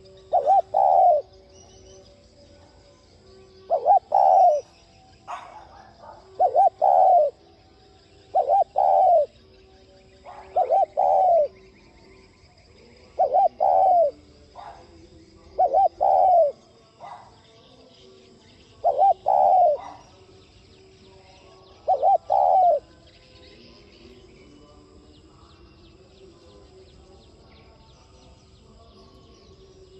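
Spotted dove cooing: about nine short two- and three-note coo phrases, one every two to three seconds, stopping about 23 seconds in. This is the quick, pressing 'thúc' style of song that keepers play to set other male doves cooing.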